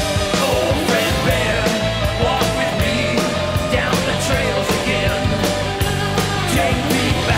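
Rock music with a steady drum beat and a bending lead melody line.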